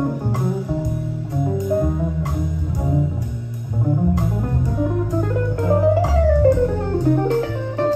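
Music playing back from a cassette on a Sony TC-K88B tape deck: a bass-heavy song with plucked guitar notes. About two-thirds of the way through, a gliding note rises and then falls.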